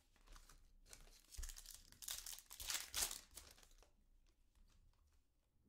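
Trading cards being slid and shuffled in the hands, a dry rustling and scraping of card stock that is loudest a couple of seconds in, then dies down to a few light ticks.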